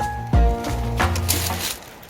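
Background music with sustained notes and a low drum beat, cutting off abruptly near the end.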